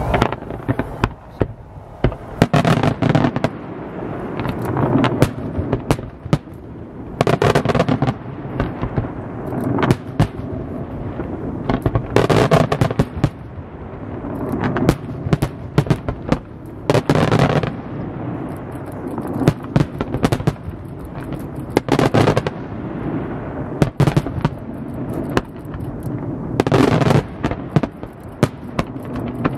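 Fireworks display: aerial shells bursting with sharp bangs in quick succession, with denser, louder volleys every few seconds.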